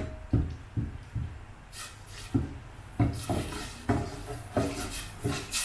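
A metal spoon stirring and scraping in a stainless steel pot, working red curry paste into hot coconut milk and stock to dissolve it. It comes as a series of short, irregular scraping strokes.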